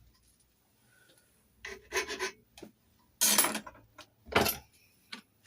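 A file cutting a key blank in several short, irregular strokes: the marks that the lock's levers have left on the blank are being taken down while impressioning a Chubb detector lever lock.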